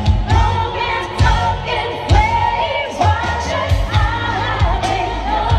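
Live freestyle pop song through a concert sound system: a woman singing the lead over a steady drum beat, with backing singers.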